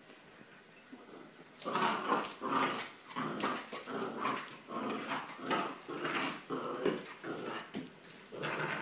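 Corgi puppy growling in quick short bursts while tugging on a rope toy, starting about a second and a half in.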